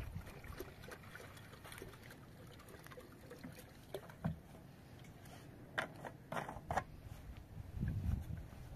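Water pouring from a plastic jerrycan into a plastic jug, faint, with a few sharp plastic knocks a little past halfway.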